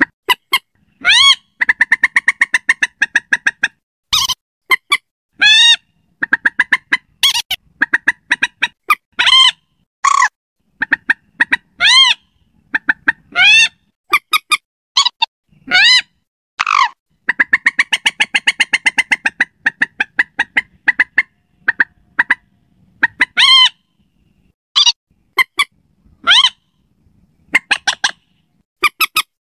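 Recorded common moorhen (mandar batu) calls played as a bird-trapping lure. The calls are loud, harsh and pitched: some are single arched notes, and others are fast rattling runs of many short notes, repeated with short pauses between.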